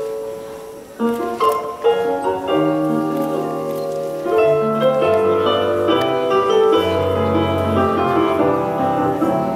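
Instrumental music with piano. It dips in level, then a new passage starts about a second in, and deeper bass notes join partway through.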